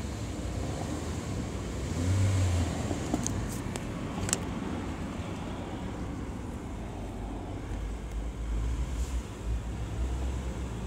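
Car engine running and blipped with the accelerator pedal, heard from inside the cabin: a short rev about two seconds in and further swells near the end. A few sharp clicks around three to four seconds in.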